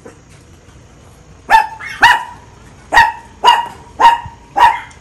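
A dog barking: six loud barks in quick succession, starting about a second and a half in.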